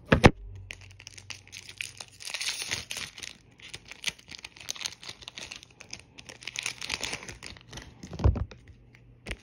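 Foil trading-card booster pack wrapper crinkling and tearing as it is handled and opened, with a couple of dull knocks from handling, one just after the start and one near the end.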